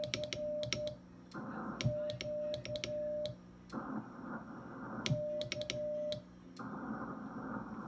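Morse code (CW) being sent on an amateur radio transceiver: a mid-pitched sidetone keyed on and off in dots and dashes, in three short groups, with the key clicking along with the elements. Between the groups the receiver's hiss comes back.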